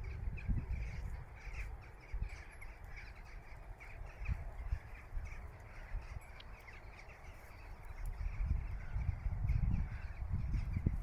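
Crows cawing, over a low rumble.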